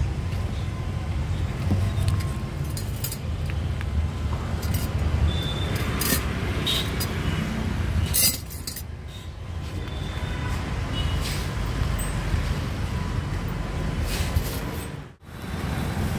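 Steady low rumble of street traffic with scattered light clinks of metal spoons and utensils against steel containers as toppings are added to a snack plate. The sound drops out briefly near the end.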